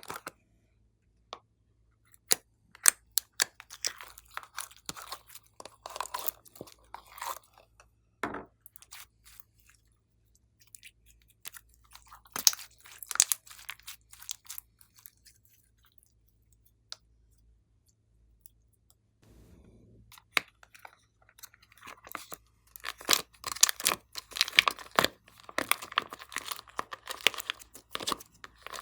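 Glossy slime being worked by hand, giving sticky clicks, pops and crackles in uneven bursts. It goes quiet for a few seconds past the middle, and is at its densest and loudest near the end.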